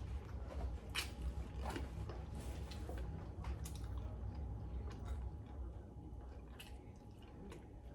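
A person chewing and biting into a saucy chicken wing, with short wet smacking and squishing sounds, over a steady low hum.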